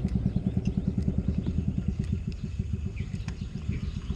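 A small engine running steadily with a rapid low putter, easing off slightly in the second half.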